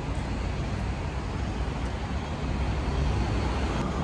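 Steady rumble of street traffic, with no distinct events.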